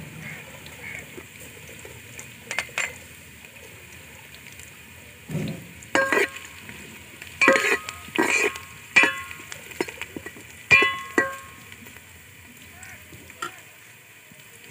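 Sliced onion, garlic and ginger sizzling steadily in hot ghee in a metal pot as they are browned. From about six seconds in, a metal spatula scrapes and knocks against the pot several times, some knocks ringing briefly.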